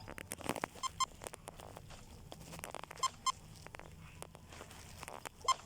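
Electronic beeps at a shop checkout: short high beeps in two pairs, about a second in and about three seconds in, then a single beep near the end, among light rustling and clicks.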